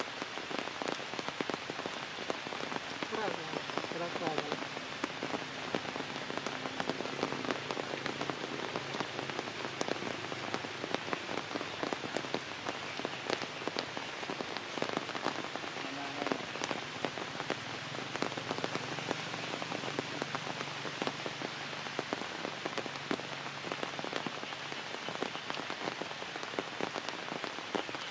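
Steady rain falling on forest leaves and branches, a constant hiss with many individual drops ticking.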